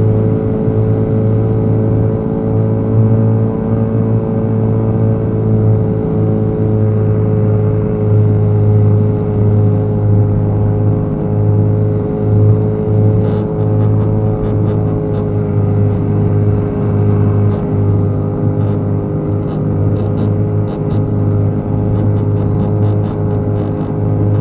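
Small boat's outboard motor running steadily under way at a constant speed, its pitch sagging very slightly, with light clicks scattered through the second half.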